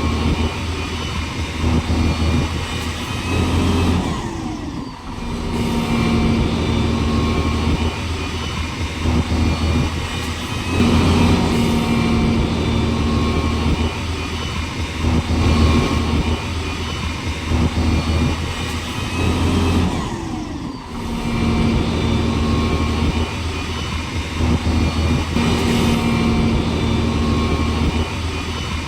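A motor vehicle's engine running and revving, its pitch rising and falling, with brief drops about five seconds in and again about sixteen seconds later, as if the same stretch repeats.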